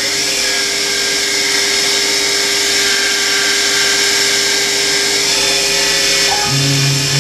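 Mini mill spindle motor running steadily at speed with a centre drill in the chuck, a constant whine over a mechanical drone. About six seconds in, a deeper, slightly pulsing hum joins as the CNC drive starts moving the machine to the hole position.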